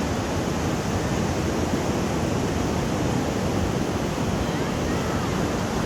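Ocean surf washing onto the beach in a steady, loud rush, with wind rumbling on the microphone.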